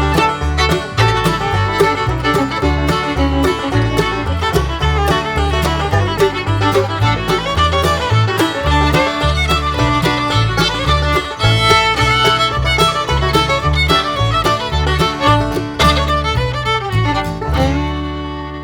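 Upbeat background music with fiddle over a quick, steady beat, settling into a long held chord near the end.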